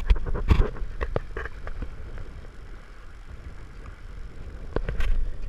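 Small boat underway: a steady low rumble with a few sharp knocks in the first second and again about five seconds in.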